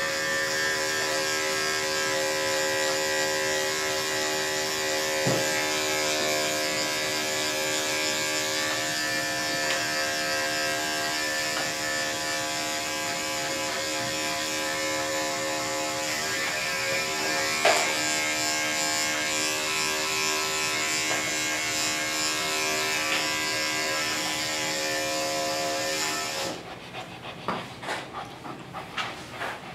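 Andis 5-speed electric dog clippers with a 10 blade running steadily, shaving off matted coat close to the skin. The motor's hum switches off near the end, leaving a few soft, irregular sounds.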